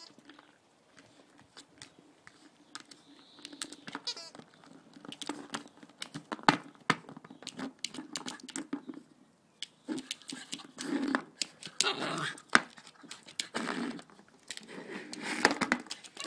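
A frustrated dog grumbling and whining in short bouts that come thicker in the second half, over a run of sharp clicks and crinkling.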